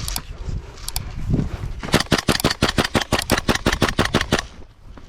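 WE-Tech SCAR-L gas blowback airsoft rifle firing: single sharp shots at the start and about a second in, then a rapid string of about eighteen shots at roughly seven a second, starting about two seconds in and stopping a little over two seconds later.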